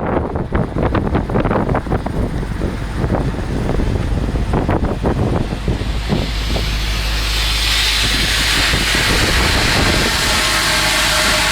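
Wind buffeting the microphone with irregular crackles, then from about six seconds a steady, loud hissing crackle typical of a 6010 stick-welding arc burning on steel pipe.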